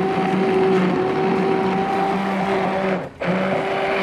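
Hand-held immersion blender running steadily with a constant motor whine as it purées shrimp soup. It cuts out for a moment about three seconds in, then starts again.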